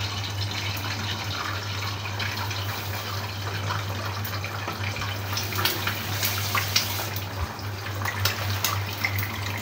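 Egg frying in hot oil in a wok: a steady sizzle with scattered crackling pops of spattering oil, the pops more frequent in the second half.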